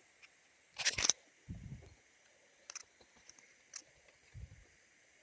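Scattered handling noises: a short scraping rustle about a second in, then two dull thumps and a few light clicks.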